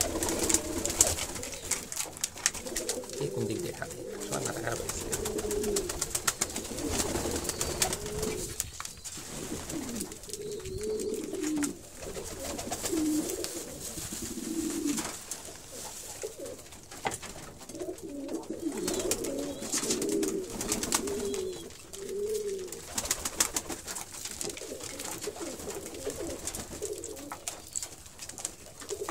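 A flock of domestic pigeons cooing together in overlapping, warbling calls, with many small clicks and taps as they crowd and feed at a wooden tray.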